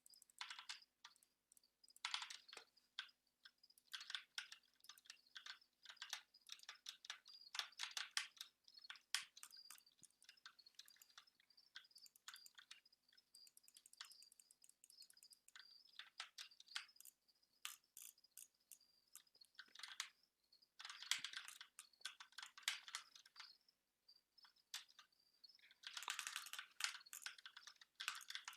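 Computer keyboard keys clicking in quick runs of typing, with short pauses between the runs, soft overall. A faint steady high whine sounds underneath.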